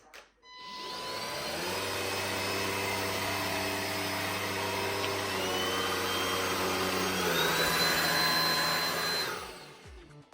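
Aigostar Willie cordless stick vacuum cleaner switched on and running: its motor spins up to a steady whine, changes tone about seven seconds in, then is switched off and winds down near the end.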